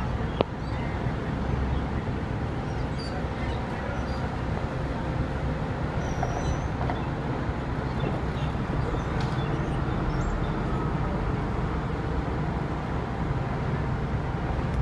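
Diesel engine of a King Long coach bus running steadily as the bus drives across the yard and away, heard muffled, with a sharp click about half a second in.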